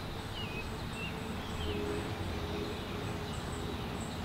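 Outdoor garden ambience: a few short bird chirps over a low steady rumble, with a faint high pulsing that repeats evenly throughout.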